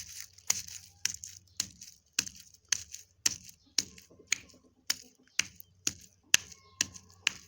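Garlic cloves being pounded on a stone, a steady run of sharp knocks about two a second.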